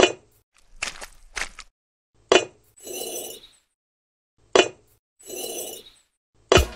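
A series of sharp clinks and knocks of hard objects striking, about six in all, with two short rushing scrapes in between.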